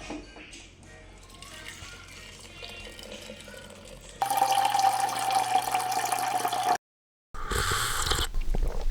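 Faint background music, then about four seconds in a sudden steady sound of liquid being poured, which breaks off for half a second and starts again near the end.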